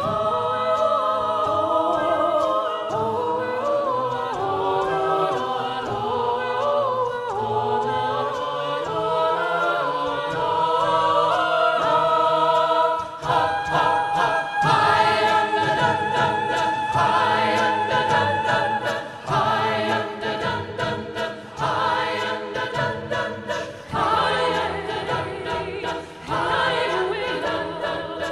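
A cappella vocal ensemble singing in five parts (SSATB), each singer on a handheld microphone, with no instruments. About halfway through, the singing turns more rhythmic and clipped.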